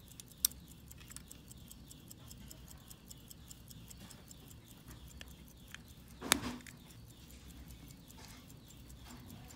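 Antique Waltham pocket watch ticking faintly and steadily, about five ticks a second, with a sharp click about half a second in and a louder metallic click near the six-second mark as the watch is handled.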